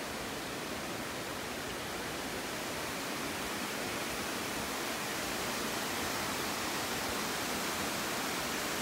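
Steady rushing of a waterfall and lake cascades, an even roar of falling water that grows slightly louder toward the end.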